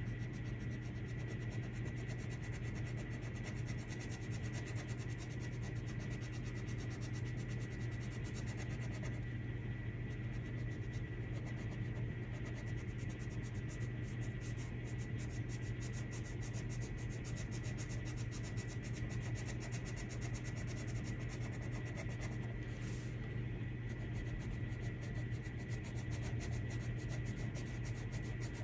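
Colored pencil shading on paper, a faint scratching under a steady low hum that does not change.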